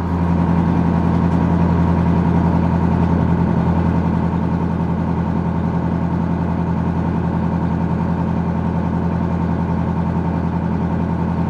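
Boat engine running steadily at low speed, a constant drone with no change in pitch, while the boat motors slowly along a search line.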